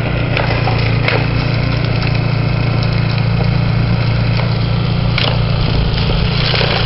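A small engine running steadily, a constant low drone, with a few brief clicks over it.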